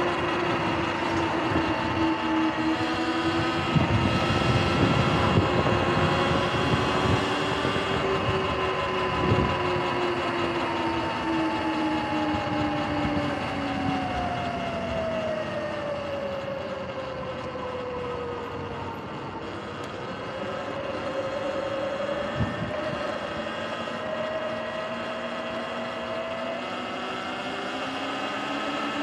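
Sur-Ron electric dirt bike's motor and drivetrain whining as it rides along pavement, with tyre noise underneath. The whine falls in pitch past the middle as the bike slows, then rises again as it speeds back up. A few short knocks come in the first third and once more later.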